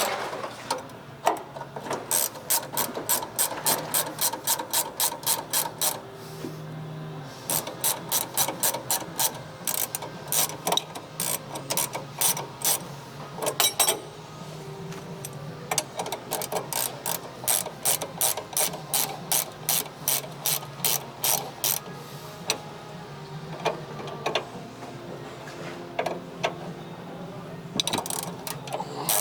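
Hand ratchet wrench clicking in quick, even runs of a few seconds with short pauses between them, over a low steady hum.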